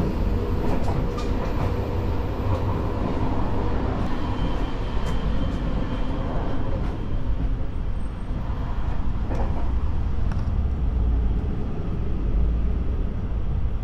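JR Shikoku 8600 series electric train running, heard from inside the car: a steady low rumble with scattered light clicks and rattles.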